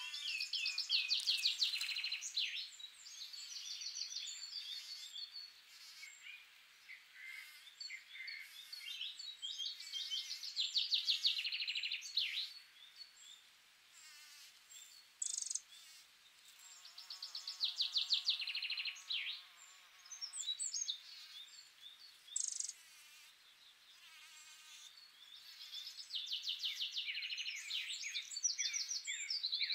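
A songbird singing outdoors: short phrases of rapid, high, trilled notes ending in quick sweeps, repeated every few seconds with pauses between.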